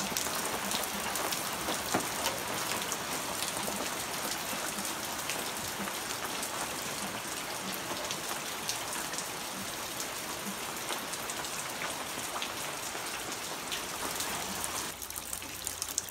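Heavy rain falling steadily on a garden, paving and umbrella: a dense hiss of rain with many small drop hits.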